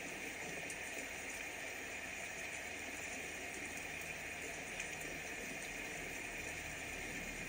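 Steady rain falling, an even hiss of water that holds level throughout.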